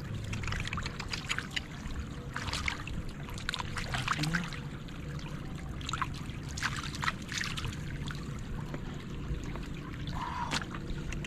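Irregular small splashes and trickling in shallow, muddy floodwater, as the water is stirred and sloshed about.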